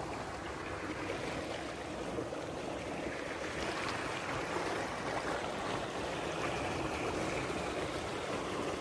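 Flowing water of a stream, a steady rushing and trickling.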